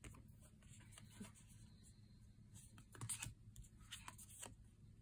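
Faint rustles and soft taps of oracle cards being handled and laid down on a cloth. A few light clicks come about a second in and again between about two and a half and four and a half seconds in, over a low steady room hum.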